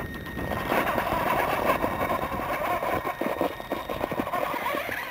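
Traxxas E-Maxx electric RC monster truck driving up a steep rock face. Its motors and drivetrain whine under load, with the tyres scrabbling on the rock, getting louder about a second in.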